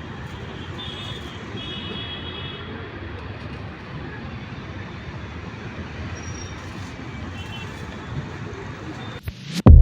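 Steady low rumbling noise like distant traffic or machinery, with faint high tones about a second in; music starts at the very end.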